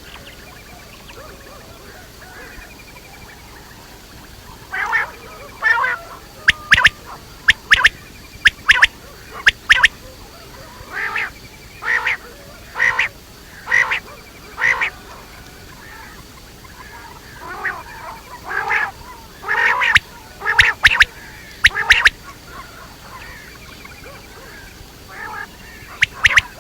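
Quail calling: short, sharp calls repeated in quick runs, a long series, then a pause, then a second series, with a couple more calls near the end.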